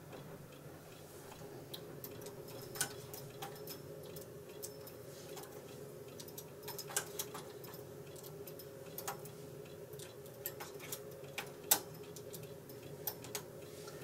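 Faint, irregular small metallic clicks of a hand transfer tool and latch needles on the metal needle bed of a KH585 push-button knitting machine as stitches are moved by hand, over a low steady hum.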